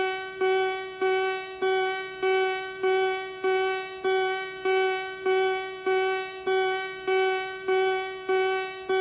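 Synthesized alarm tone from a homemade mock Emergency Alert System alarm: a single plucked-sounding note at one fixed pitch, repeating about every 0.6 seconds, each note starting sharply and fading.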